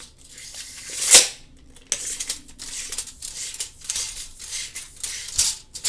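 Retractable steel tape measure being worked: irregular rattling clicks and rasps of the blade sliding in and out of its case, with one louder rasp ending sharply about a second in.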